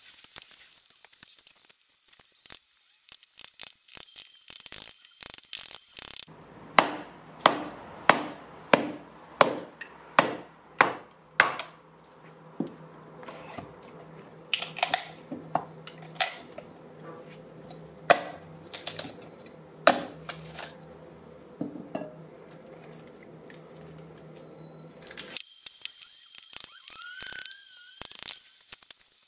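Wood being split with an axe driven by a wooden mallet on a chopping block. A quick run of about ten sharp knocks, more than one a second, then scattered knocks and taps as the split pieces are worked apart.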